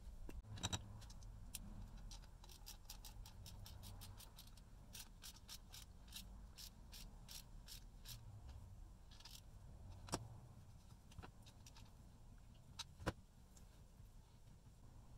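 Faint hand work on small parts: a run of light clicks, about three or four a second, then a few sharper single clicks near the end.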